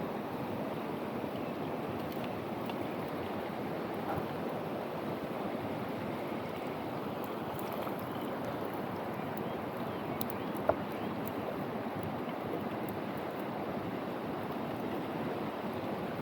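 Mountain stream water rushing steadily over rocks, an even rushing noise, with one light click about two-thirds of the way through.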